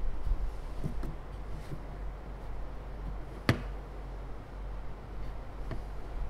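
A few scattered clicks and taps from a laptop keyboard and mouse, one sharper click about three and a half seconds in, over a low steady hum.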